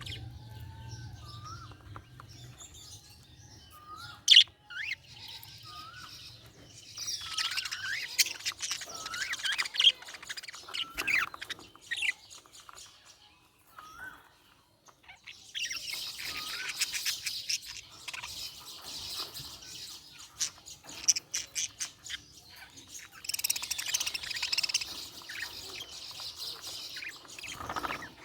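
Budgerigars chirping and chattering in busy bouts of rapid high notes, with short rising whistles in the quieter spells between them and a few sharp, loud chirps.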